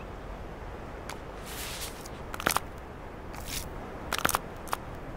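Snow crunching and scraping as a Troodon digs with its snout for buried nuts: two short brushing hisses and a few sharp cracks, the loudest a quick cluster near the end.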